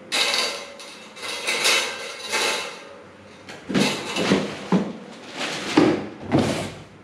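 Pedestal fan parts and their packaging being unpacked and handled: a run of short rustles, scrapes and light knocks, with a few duller knocks in the second half.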